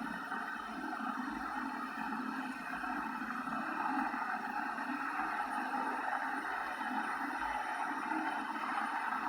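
Electric geyser with its heating element switched on, heating the water in the tank: a steady hiss.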